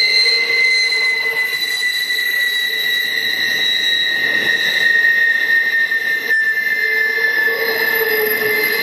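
Steel wheels of a passing train of flatcars squealing against the rail as the train rounds the curve of a viaduct: several steady high squeal tones that drift slightly lower in pitch, over the rumble of the rolling cars, with one brief click about six seconds in.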